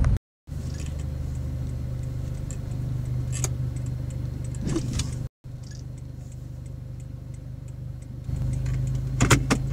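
Steady low hum of a Toyota Hilux Vigo's 2KD diesel idling in slow street traffic, with a few light clicks. About nine seconds in comes a short cluster of sharp knocks, the loudest thing here, which is plausibly the car behind bumping into the pickup's rear.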